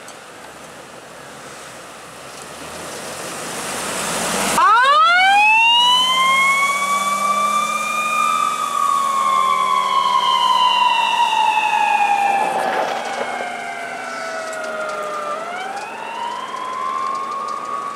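Ambulance siren wailing: it starts about a third of the way in with a quick rising sweep, falls slowly over about ten seconds, then rises again near the end. Before the siren starts, the noise of the ambulance driving close by grows louder.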